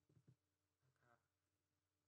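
Near silence: faint room tone with a low steady hum, and a faint trace of a voice near the start.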